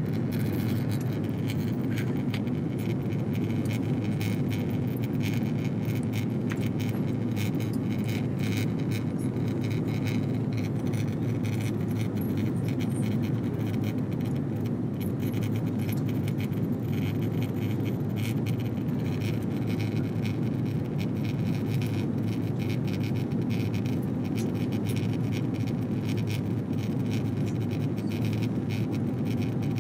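Steady cabin noise of a jet airliner in flight: a low, even roar of engines and airflow, with light clicking and rattling throughout.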